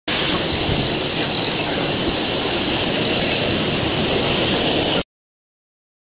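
Plastic strap extrusion line running: a loud, steady machine hiss with a constant high whine, cutting off abruptly about five seconds in.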